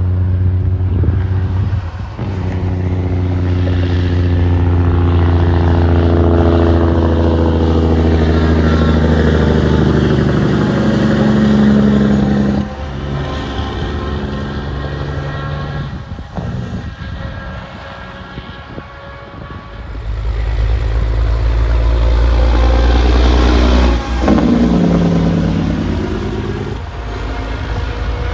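Diesel semi-truck engines. First comes a loud, deep engine-brake (Jake brake) bark that slowly falls in pitch as the truck slows. After a quieter stretch, a yellow semi accelerates hard, blowing black smoke from its stacks, and its deep rumble swells and sweeps past about two-thirds of the way through.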